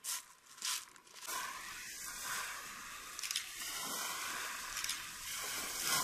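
Steady outdoor hiss of a pebble beach by the sea, with two short, louder bursts in the first second.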